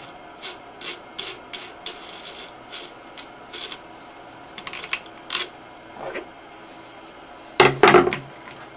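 Lid nut being unscrewed from the threaded centre rod of a Thumler's UV-10 vibratory tumbler: a series of short scraping clicks about three a second, then a louder knock and rattle near the end as the lid is lifted off the bowl and set down.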